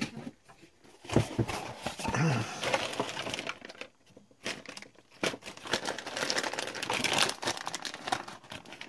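Hands rummaging and handling crinkly plastic, with many small clicks and rattles, in two spells broken by a short pause about four seconds in: getting a zip tie to strain-relieve a cord.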